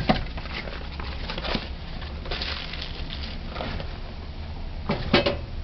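Scattered light knocks and clatters of kitchen items being handled on a counter, with a brief cluster of louder knocks near the end, over a low steady hum.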